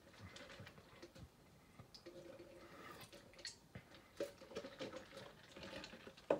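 Faint scattered clicks and handling noise from a handheld recording device, with one sharper click near the end.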